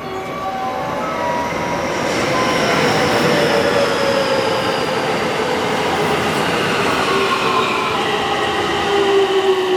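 JR West 225 series 5000 and 223 series electric multiple unit pulling away from a station. Its electric traction gear whines in several tones that slowly fall in pitch over a rumbling running noise, which grows louder a couple of seconds in as the train gathers speed.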